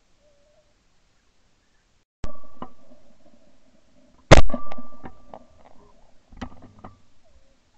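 Two shotgun shots from a Beretta 692 over-and-under, about two seconds apart, the second much louder, each trailing off in a long echo. A few softer knocks follow near the end.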